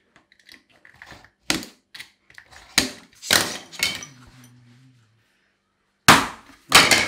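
Utility knife scoring a stone-composite-core vinyl floor plank along a metal straight edge, a run of short scrapes and knocks, then two sharp cracks near the end as the scored plank is bent and snapped.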